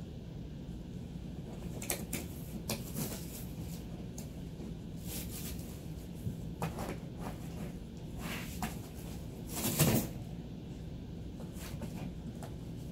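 A husky puppy tearing and chewing at a cardboard box: irregular rustling, scraping and ripping of cardboard, the loudest rip about ten seconds in.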